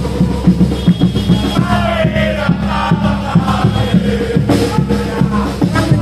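A marching crowd of football supporters chanting and singing together in unison over a rhythmic drumbeat.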